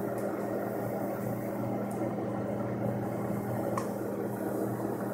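Microwave oven running with glow sticks inside, a steady hum with fan noise.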